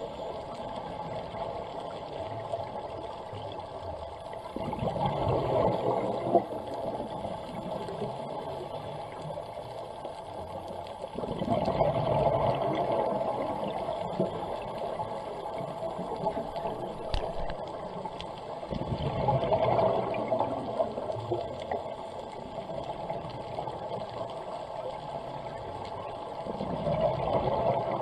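Scuba diver breathing through a regulator underwater: a bubbling rush of exhaled air four times, about every seven seconds, over a steady underwater hiss.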